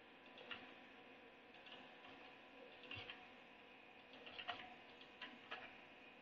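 Faint, irregular clicks of a computer keyboard and mouse as numbers are entered field by field, over a faint steady hiss.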